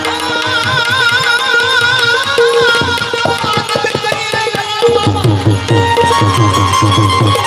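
Bhajan music played on instruments, with tabla and a sustained melodic instrument. The melodic instrument holds notes with a wavering vibrato early on. In the second half the tabla plays a quick run of strokes, the low drum's pitch sliding down on each one.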